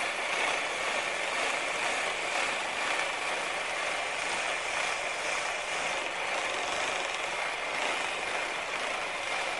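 A skew chisel planing a green-wood chair post that is turning on a foot-powered treadle lathe: a steady shaving noise from the cut, with the lathe's treadle mechanism running underneath.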